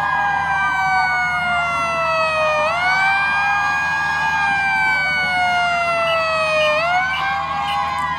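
Siren wail played as an effect in a marching band's show. The pitch sweeps up quickly and then falls slowly over about four seconds, again and again.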